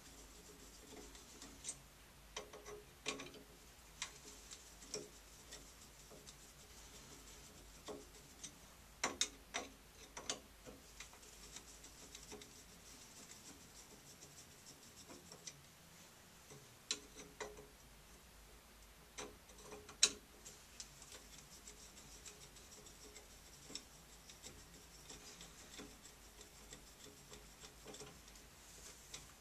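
Faint, irregular clicks and light knocks of hands handling a shower valve's cartridge and its screwed metal mounting plate inside the wall opening, the sharpest click about two-thirds of the way through.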